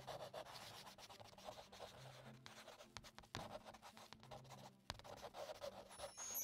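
Faint scratching of a pen drawing on paper, in quick short strokes, with a couple of sharp ticks partway through.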